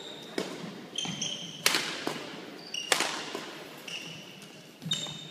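Badminton rally: sharp cracks of rackets striking the shuttlecock about every one to one and a half seconds, echoing in a large gym, mixed with short high squeaks of shoes on the hardwood court.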